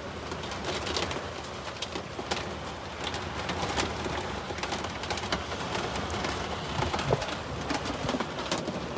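Storm-force wind gusting against an RV: a steady rushing noise with many small clicks and rattles throughout.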